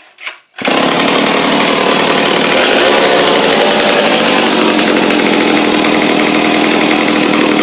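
Pioneer Super 620 two-stroke chainsaw being started: a couple of short rasps, then the engine catches about half a second in and keeps running steadily and loudly. The saw has just been revived with a new fuel line and a tuned Tillotson carburettor, which the owner says still isn't quite right.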